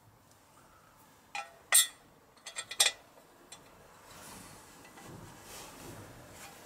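Small metal parts clinking against the aluminium casing of a Yamaha XS650 engine as the oil pump is pressed onto its dowel: two sharp clinks between one and two seconds in, the second the loudest, a quick run of clicks near three seconds, then faint rubbing.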